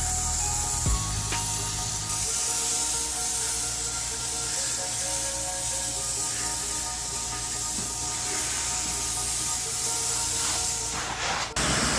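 Pressure washer spray hitting a screen enclosure: a steady hissing spray of water against the screens and frame, which breaks off abruptly near the end.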